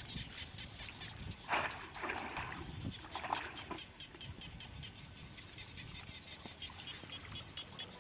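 Rapid, evenly pulsed chirping from a calling animal, about five chirps a second, with a few splashes of water between about one and a half and three and a half seconds in.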